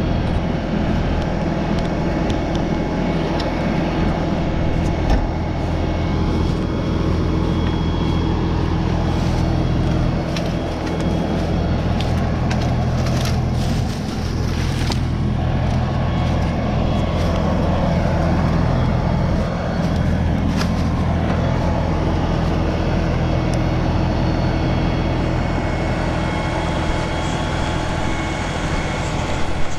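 LS compact tractor's diesel engine running steadily close by, with a few short knocks and rustles about halfway through.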